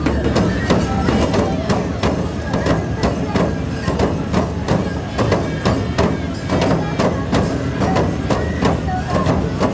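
Nebuta hayashi festival music: large taiko drums and hand cymbals beaten in a steady, driving beat, with bamboo flutes playing a tune over it.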